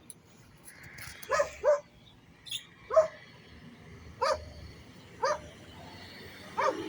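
Dog barking: about six short barks at uneven gaps, the first two in quick succession.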